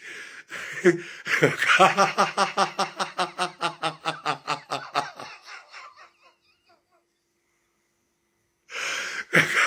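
A woman laughing hard in a quick run of rhythmic ha-ha pulses, about five a second, which trail off after about five seconds; after a short silence she takes a sharp breath in near the end.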